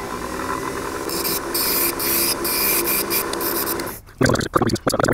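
Wood lathe running with a steady motor hum while a turning gouge cuts a spinning wooden handle, a rough shaving noise starting about a second in. Near the end the cut stops briefly, then comes back as a series of short, loud scraping cuts.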